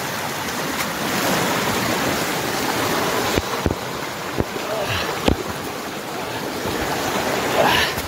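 Steady rushing noise, like running water. Four low thumps about three to five seconds in come from the close-held camera being knocked about while he scrambles through brush.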